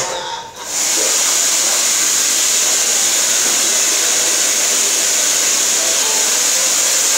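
A hair dryer switched on under a second in, blowing with a loud, steady hiss.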